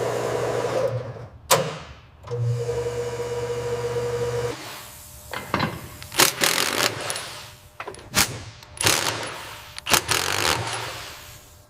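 A small motor runs with a steady hum, stops about a second in, runs again for about two seconds and stops. A string of sharp clicks and knocks follows.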